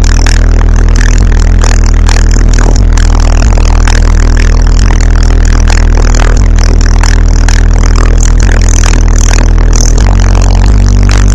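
Car subwoofers playing a song's deep bass very loudly inside the car, with sustained low notes that shift about ten seconds in, loud enough to clip the recording.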